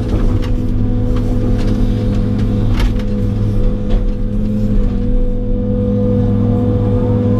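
John Deere 200 excavator's diesel engine running steadily under work, heard from inside the cab as the boom and bucket are worked, with a few short knocks.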